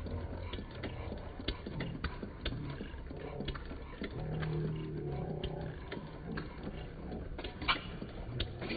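Model single-cylinder steam engine running: a string of sharp clicks over a low rumble.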